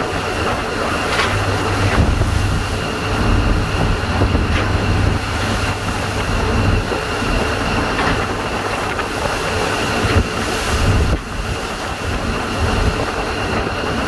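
Storm wind blowing hard across a boat's open deck, with seawater washing over the deck and a steady low rumble. A thin steady whistle sits above it, and a few sharp knocks or spray hits come through, one of the loudest about ten seconds in.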